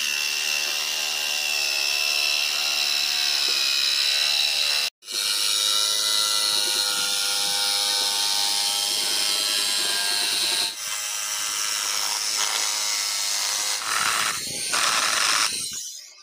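DCK electric jigsaw cutting a curve through a thick wooden plank, its motor running with a steady whine. The sound cuts out for a moment about five seconds in and stops just before the end.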